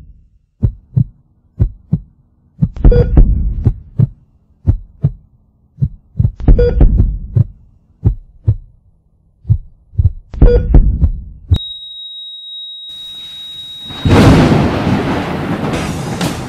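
Heartbeat sound effect: paired low thumps about once a second, with heavier pounding every few seconds. About two thirds of the way in the beats stop and a steady high beep sounds, then a loud rush of noise swells in near the end.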